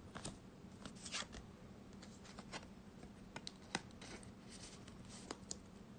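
Yu-Gi-Oh trading cards being slid into and out of plastic card sleeves and handled by hand: faint, scattered soft swishes and clicks.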